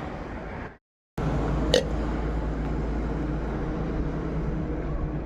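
A single short, sharp hiccup from a woman about two seconds in, over a steady low background hum, just after a brief moment of dead silence.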